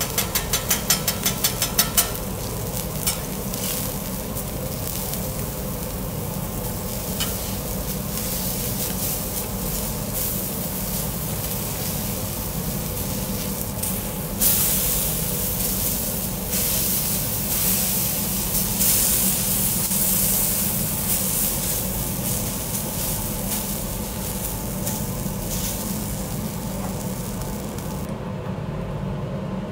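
Seafood sizzling on a teppanyaki iron griddle, opening with a metal spatula tapping quickly on the plate about four times a second. About halfway through the sizzling surges louder and eases off over several seconds, and near the end it cuts off, leaving a steady low hum.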